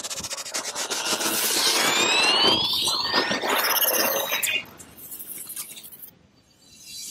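Sci-fi intro sound effects: dense electric crackling with rising whistling sweeps. It drops off sharply about four and a half seconds in and fades to near quiet.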